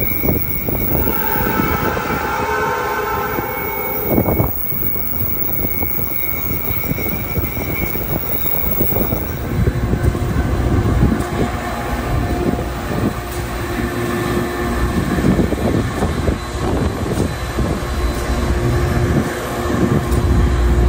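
Passenger train running, heard from an open carriage window: a steady rumble of wheels on rail with wind, and repeated knocks from the track. A high steady tone sounds for about three seconds near the start and ends with a sharp clank.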